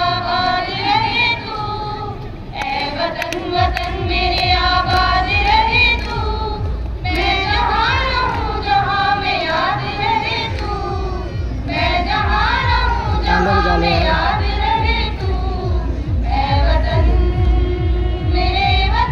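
A song: a high-pitched voice sings a wavering melody, and a heavy bass beat comes in a few seconds in.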